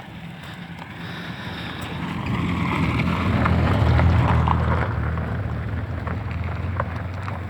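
A road vehicle passes close by on a rough, patched road, its engine and tyre noise building to a peak about four seconds in and then slowly fading.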